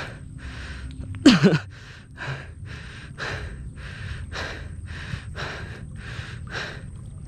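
A man panting hard into the microphone, short quick breaths about two a second, winded from wading and hauling a cast net through mud. About a second in there is one brief loud sound that falls steeply in pitch.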